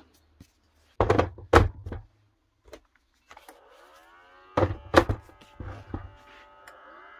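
Battery packs knocked down onto a twin-port rapid charger, two knocks about a second in and two more about five seconds in as the second pack goes on. From about three seconds in there is a steady whir that slides in pitch, the charger's cooling fan running as it starts charging.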